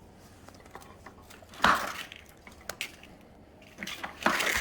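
Handling noises: scattered light clicks and knocks, with two louder clattering scrapes, one about a second and a half in and one near the end, as equipment is picked up and set down.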